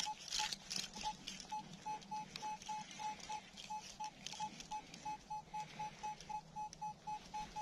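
Minelab Equinox 800 metal detector beeping over a target: short beeps on one mid pitch, about three to four a second, quickening slightly toward the end. Faint rustling and clicks sound under the beeps.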